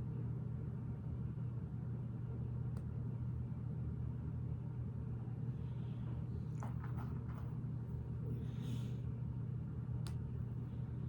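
Steady low background hum, with a few faint clicks and rustles of Lego pieces being handled and pressed into place.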